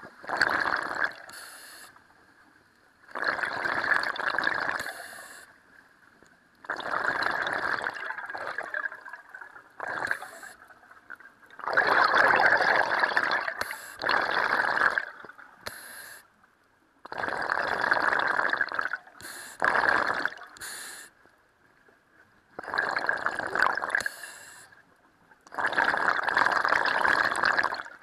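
Scuba regulator underwater during slow breathing: about seven long bursts of exhaled bubbles gurgling out, a few seconds apart, with a short hiss of the inhale between some of them.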